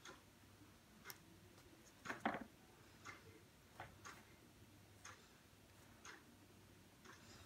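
Faint soft ticks and scrapes of a metal spoon spreading thick pesto over lasagne sheets in an enamel roasting pan, about one a second, with a slightly louder scrape a little after two seconds.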